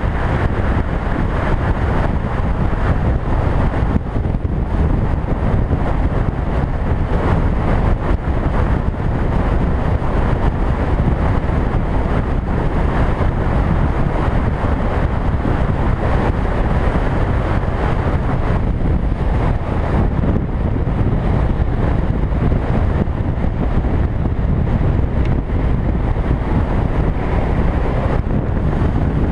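Steady wind rush on the microphone of a camera mounted on a motorcycle moving at road speed, mixed with the bike's running and road noise.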